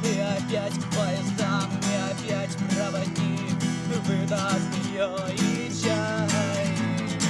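Acoustic guitar strummed in a steady rhythm during an instrumental break, with a wavering melodic line on top. A long held note enters about six seconds in.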